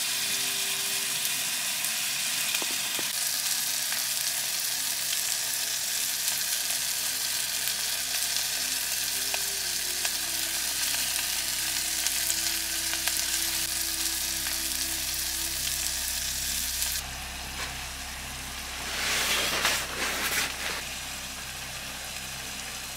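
Tomato masala for kadai paneer sizzling in a pot on a canister gas camping stove, a steady frying hiss. About 17 s in the hiss drops a little, and a short louder burst follows a couple of seconds later.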